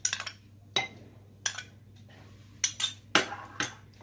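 Metal spoon clinking and scraping against glass bowls as curd is scooped from a small glass bowl into a glass mixing bowl of gram-flour batter: a handful of separate clinks at uneven intervals, the loudest about three seconds in.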